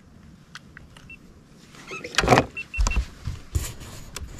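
Camera handling noise as the camera is picked up and moved: irregular rubbing and knocks, the loudest just past two seconds in, with more knocks over the next two seconds.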